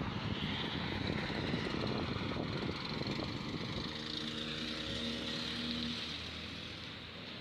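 Road traffic on a wide road, with wind buffeting the microphone. A vehicle engine's hum comes through from about four to six seconds in.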